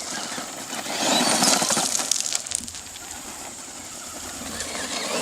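Traxxas Bigfoot RC monster truck crawling over loose rocks and gravel, with a dense crunching and clattering of stones under its tyres. The clatter is loudest about a second in and dies down after the middle.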